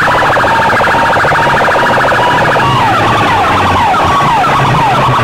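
A wall of stacked horn loudspeakers blasting electronic siren-style sound effects at competition volume. A fast warbling tone plays for about two and a half seconds, then gives way to repeated swooping sweeps up and down.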